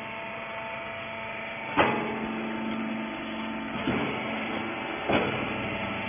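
Rags baler machine running: a steady motor hum with a few level tones, broken by three sharp clunks, the first and loudest about two seconds in and the others near four and five seconds.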